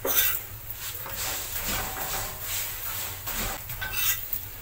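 A metal spoon spreading oil over a chapati on a hot flat pan: short scraping and rubbing strokes about twice a second, over a low steady hum.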